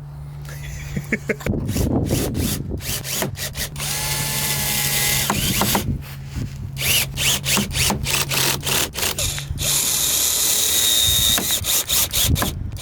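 Power drill driving screws in a string of short stop-start bursts, with a pitched motor whine near the middle, fastening the front lip in place.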